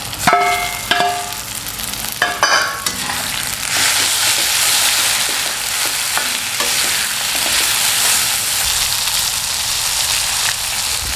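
Marinated chicken pieces frying in hot oil with browned onions in a steel wok, sizzling steadily, the sizzle building about three seconds in. Early on, a few metallic clinks and scrapes of a slotted spoon against the steel bowl and wok as the chicken is tipped in and stirred.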